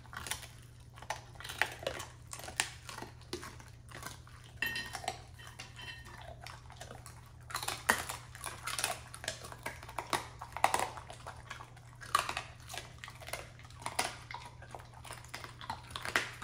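Two husky dogs chewing and licking food off plates: irregular crunching, wet smacking and clicks of teeth and tongues against the plates.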